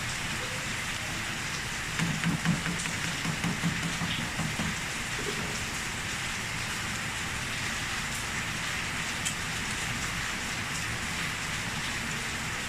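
Steady heavy rain falling, an even hiss. A few short low sounds stand out about two to four seconds in.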